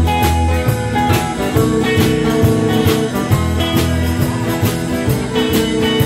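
Live blues band in an instrumental break: upright bass, guitars and drums with a steady beat, and a harmonica playing long held notes through a hand-cupped microphone.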